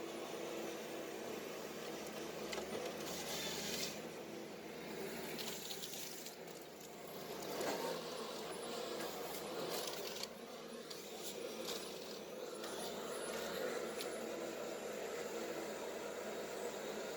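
Ponsse ERGO forestry harvester working in the forest: its engine runs with a steady hum, broken every second or two by short rushes of hissing noise.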